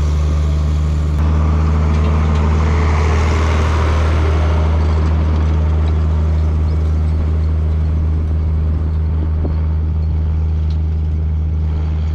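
Tractor diesel engine running under load as it pulls a seed drill close past, loudest about two to three seconds in, then easing off as it moves away, over a steady low drone.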